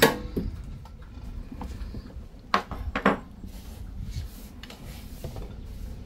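Metal tools clinking and knocking against fittings during a seawater tap repair. There are a few scattered knocks, with a sharper pair about two and a half and three seconds in, over a low background rumble.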